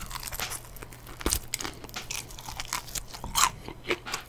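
Crunching and chewing on crispy fried chicken close to the microphone: irregular crisp crunches, with louder bites about a second in and again near three and a half seconds.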